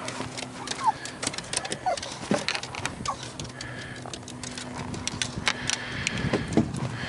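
Clicking and knocking of fishing tackle and boat fittings as a fish is brought aboard, with a few short squeaks and a steady low hum underneath.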